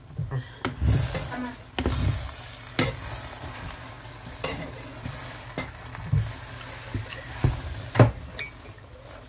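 Spatula stirring and tossing instant noodles with egg in a hot metal pot: irregular scrapes and knocks against the pot over a steady frying sizzle.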